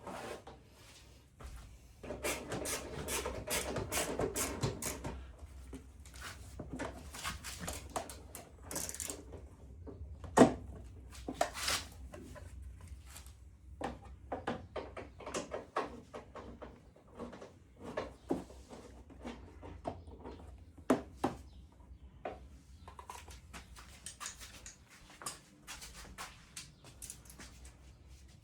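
Hand tools and metal parts clinking and knocking while screws are worked loose on a VW T5 bus's bumper. The sound is a scatter of taps and clicks, with a denser rustling stretch a couple of seconds in and one sharp knock about ten seconds in.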